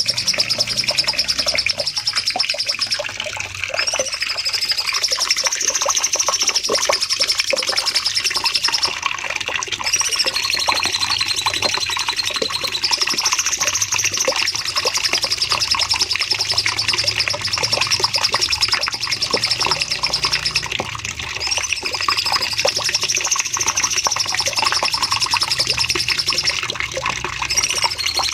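Cucak cungkok songbird singing a long, unbroken run of rapid-fire notes (the 'nembak panjang' style), with a warbled looping phrase returning about every nine seconds.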